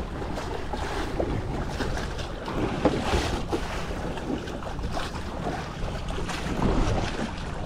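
Wind buffeting the microphone over a choppy sea, with waves splashing against a bamboo-outrigger fishing boat and a few small knocks.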